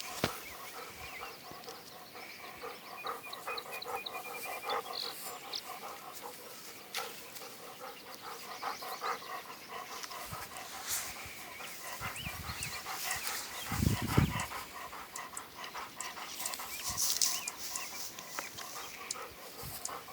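German shorthaired pointer panting steadily, with a dull low thump about fourteen seconds in.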